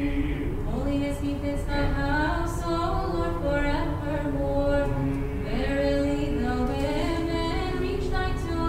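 Orthodox church choir singing a Vespers hymn a cappella, with female voices leading. The melody moves in held notes and step-wise changes of pitch.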